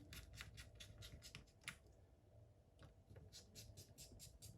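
Faint, rapid light clicks and taps in two flurries, one in the first two seconds and another past the middle.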